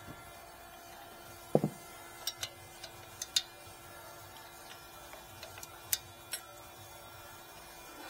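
A socket wrench on an extension and other hand tools clinking against the rear brake caliper and its bolts: a dull knock about a second and a half in, then a scatter of sharp metallic clicks over the next few seconds and two more near the end.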